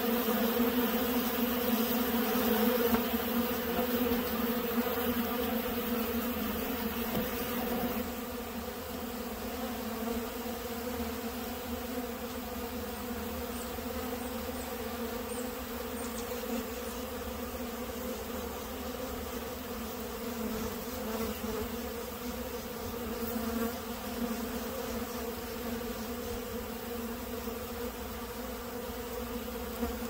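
Honeybees buzzing in a steady hum that drops a little in loudness about eight seconds in.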